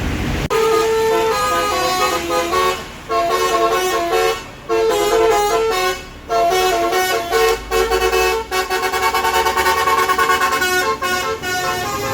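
Basuri musical bus horn playing a loud melody of held and rapidly repeated notes, starting about half a second in, with short breaks between phrases.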